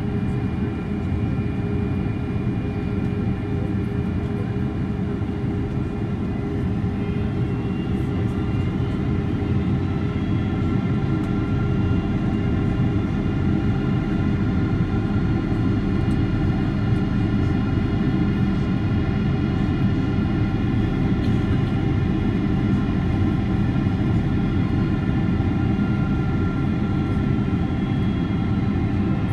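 Steady cabin noise of a Boeing 767-300 in flight, heard from a passenger seat: a dense low rush of airflow with several steady engine tones above it.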